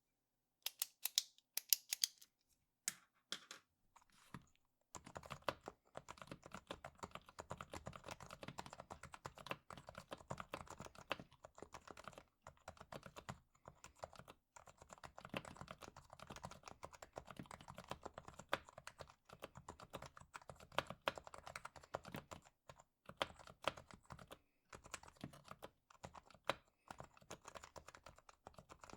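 Typing on an HHKB Hybrid Type-S keyboard whose Topre switches have been fully lubed and tuned. A few separate keystrokes come first, then steady fast typing from about five seconds in.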